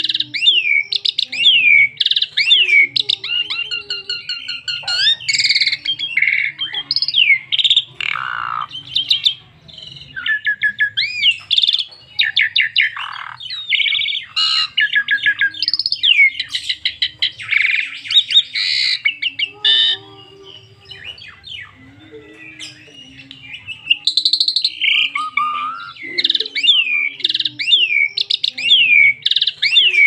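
Asian pied starling (jalak suren) singing a long, varied song of rapid whistles, sweeping glides and chattering notes. The song eases into a lull of a few seconds about two-thirds of the way through, then starts again.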